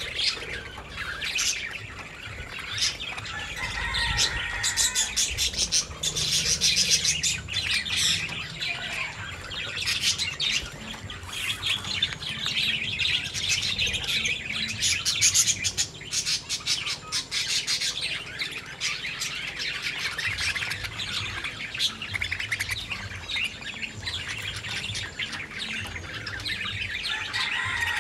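Birds chirping and twittering continuously, many quick calls overlapping.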